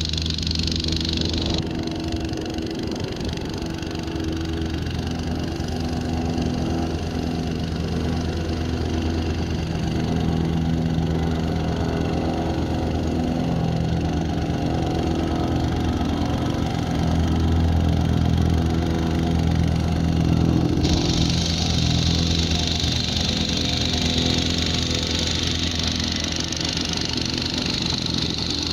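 Wacker vibratory plate compactor running steadily as it is walked over loose gravel, its engine and vibrating plate packing the gravel down. A higher hiss comes in about two-thirds of the way through.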